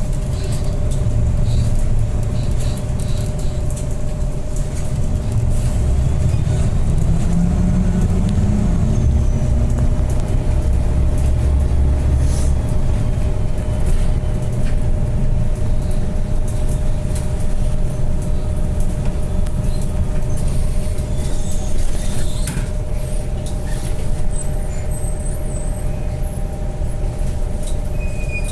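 Bus running, its engine rumbling steadily under a constant whine, with the engine pitch rising briefly about eight seconds in.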